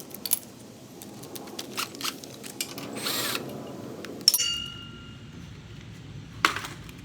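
Hand-tool work on a lawnmower: scattered clicks and clinks of metal tools and parts, a short whir of a power drill about three seconds in, then a sharp metal clank that rings on briefly, and another knock near the end.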